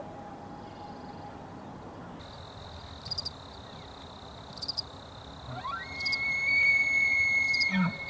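The fading echo of a common loon's wail dies away over the first two seconds. Then a bull elk bugles: about five and a half seconds in, a call rises steeply into a long, high whistle that holds for nearly two seconds and ends in a few low grunts.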